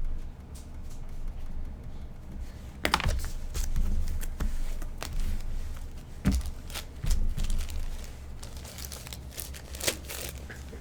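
Wax-paper pack wrappers and trading cards crinkling and rustling as they are handled, with scattered sharp taps over a low steady hum.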